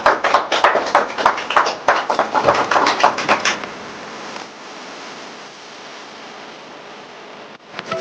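Hands clapping in quick, even claps, about six a second, for about three and a half seconds, then a steady hiss.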